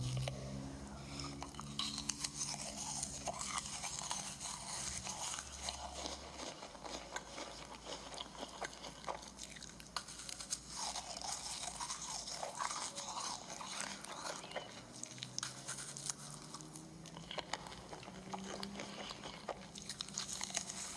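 Crisp meringue cookies being bitten and chewed, a dense run of sharp crunches and crackles, heard as an ASMR eating recording played back through a device speaker.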